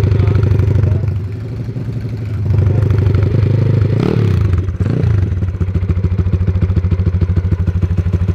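A Honda Trail 70 mini bike with a Pitster Pro 140cc single-cylinder four-stroke engine running. Its revs drop about a second in and pick up again, there are two quick throttle blips around the middle, and then it settles into a steady fast idle.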